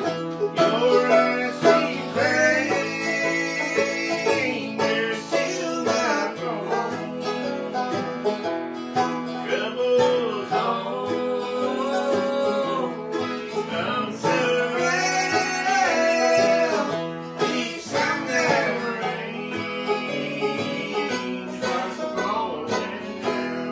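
Bluegrass band playing an instrumental break, with banjo and guitar picking.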